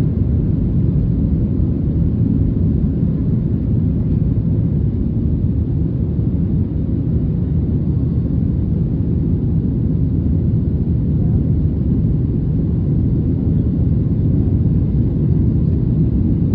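Boeing 737 jet engines at takeoff power: a loud, steady low rumble with no breaks.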